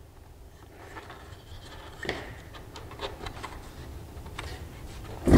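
Light scratching and rubbing as a speaker terminal cup is pushed and worked into its hole in a carpet-covered MDF subwoofer box, with small ticks and a louder scrape about two seconds in. A sharp thump comes at the very end.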